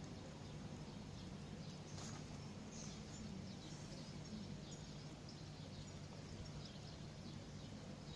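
Faint outdoor ambience: scattered short, high chirps of distant small birds over a steady low hum.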